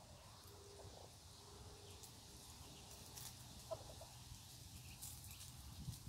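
A few faint, short peeps from week-old ducklings, with light rustling in the dry litter as they forage.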